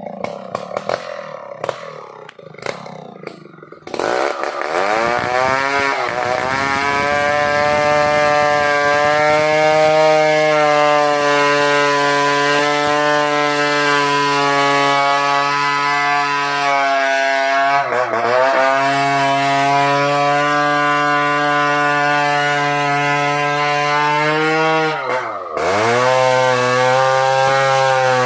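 A few irregular knocks, then about four seconds in a two-stroke chainsaw revs up and runs at full throttle cutting into the trunk of an ironwood tree. Its pitch sags twice and recovers as it bogs down under load in the cut.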